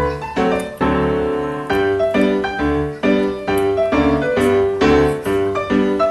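Background piano music, a steady run of struck notes and chords.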